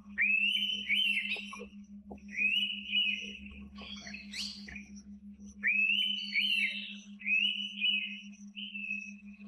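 Indian pitta whistling its two-note call, given about four times: each note opens with a quick upward sweep and holds a clear high pitch. Midway there is a brief busier burst of higher notes, and a faint steady low hum runs underneath.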